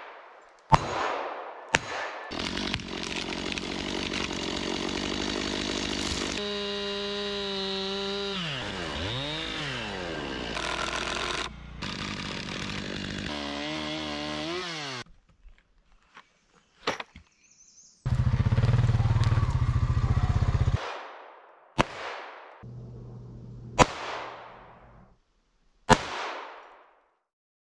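Two pistol shots ringing off hanging steel targets. Then a gas chainsaw running for about twelve seconds, revving up and down as it cuts. After a pause comes a loud low steady drone for about three seconds, then three more pistol shots whose sound trails away.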